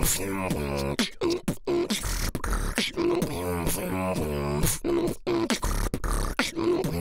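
Beatbox-style hip-hop beat: sharp percussive hits over a deep bass, with a pitched vocal line riding on top in a repeating rhythm.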